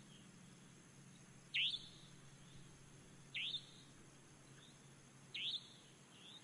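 Faint background ambience of a bird chirping: a short, sharp chirp repeated about every two seconds, three times, over a faint low steady hum.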